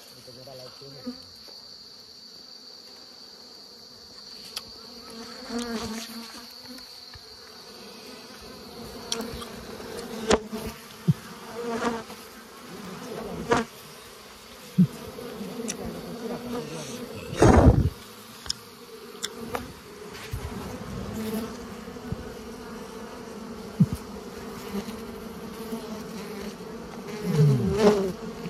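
A swarm of wild honeybees buzzing around the nest, the hum rising and falling as bees fly close past the microphone and swelling near the end. Scattered knocks from handling are heard, the loudest about two-thirds of the way through, and a steady high whine runs for roughly the first nine seconds.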